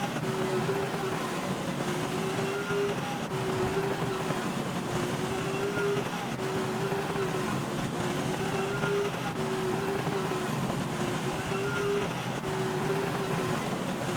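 Bulldozer running steadily, its tracks giving a short squeal that repeats about once a second.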